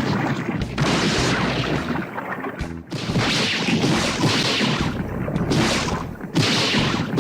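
Evangelion anime sound effects for Eva Unit 01: a run of heavy crash and impact sounds with deep rumble, played as several short clips back to back that start and cut off abruptly.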